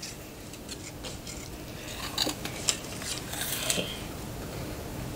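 Crisp crunching and clicking of small treats being bitten and chewed, loudest between about two and four seconds in.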